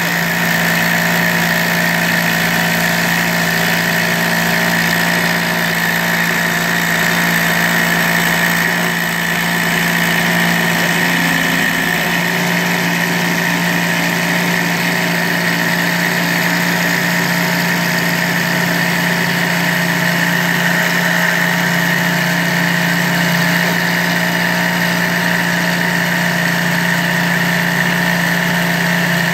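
A CNC needle cutter running steadily, its reciprocating needle cutting 3 mm Depron foam: a constant machine hum with one low tone and one high tone. A little change in the tone about twelve seconds in.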